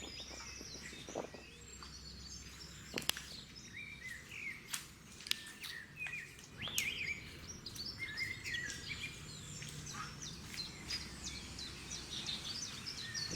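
Small birds chirping and calling over and over with short trills, together with a few sharp clicks or knocks, the loudest about three seconds in and again past five seconds.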